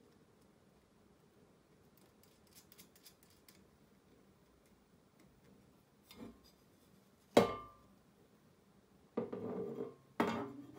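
Small metal parts of an aluminium weather vane clicking and clinking as they are handled and fitted by hand. There is a sharp metallic knock with a brief ring about seven seconds in, then a scrape lasting about a second and another knock near the end.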